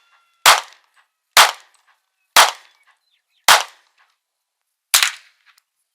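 Rifle shots fired one after another at a steady pace: five sharp cracks about a second apart, the last after a slightly longer pause.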